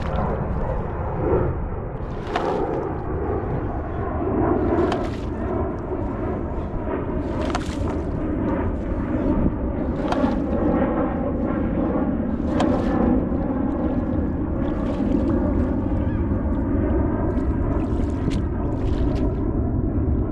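Bait pump (slurp gun) being worked in wet sand for ghost shrimp, a short sharp sucking or splashing stroke about every two to three seconds over a steady low rumble.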